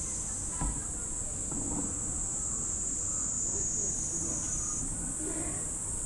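A steady, high-pitched chorus of insects, with faint voices in the background.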